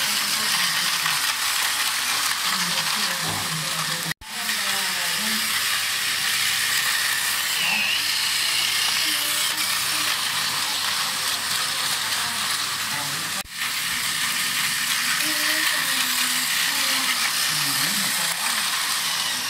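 Battery-powered toy trains running on plastic track, a steady whirring rattle that cuts out for an instant twice.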